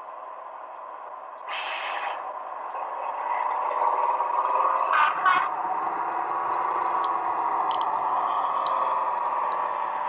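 Synthesised Class 55 Deltic diesel engine sound from a Hornby HM7000 sound decoder, played through a model locomotive's small speaker and thin on bass, with the engine note rising as the model pulls away. A short hiss comes about a second and a half in, and two sharp clicks about five seconds in.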